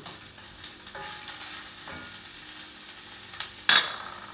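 Chopped bacon sizzling steadily as it fries in a skillet. A short, sharp clink near the end.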